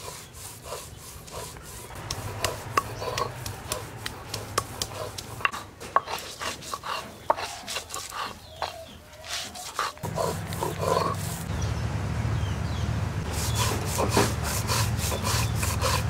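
Ginger and garlic being ground together by hand on a grinding stone: repeated rough rubbing and scraping with many small clicks. It becomes denser and louder about two-thirds of the way through.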